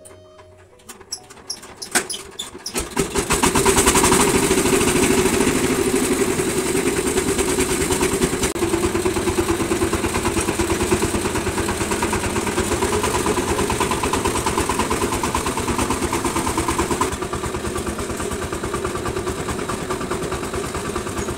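VST power tiller's single-cylinder diesel engine being started: a few sharp knocks of cranking, then it catches about three seconds in and runs steadily with an even rapid firing beat. It gets a little quieter near the end.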